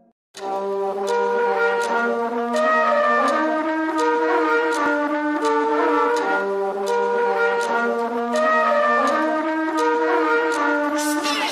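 Trap music intro: a melodic lead line of held notes over light, evenly spaced ticks, starting abruptly a moment in.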